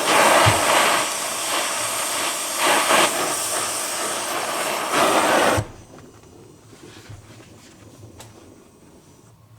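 Steady, loud hissing rush from a shop tool working on the door hinge's roller detent, swelling a few times and cutting off suddenly about five and a half seconds in. Faint clicks and handling noise follow.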